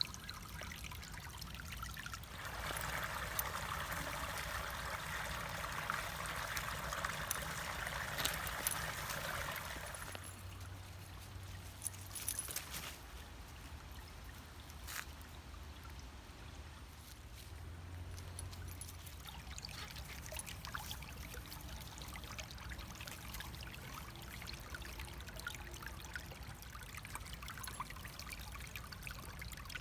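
Creek water trickling and running over stones, a steady splashing hiss. It is louder for the first several seconds, then softer.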